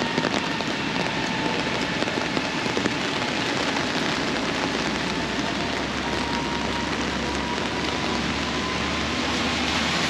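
Steady heavy rain hissing on a city street, with a few small pattering clicks in the first seconds.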